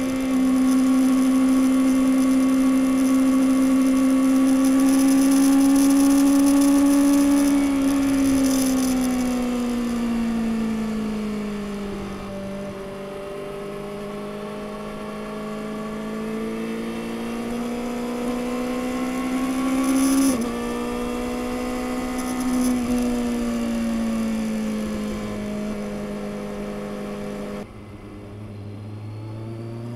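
2021 Kawasaki ZX-6R's inline-four engine running through its stock exhaust, heard on board with wind rush. The engine note holds, then sags and climbs again as the throttle changes, with a sudden break in the tone about two-thirds through. Near the end it drops abruptly to low revs and starts to rise again.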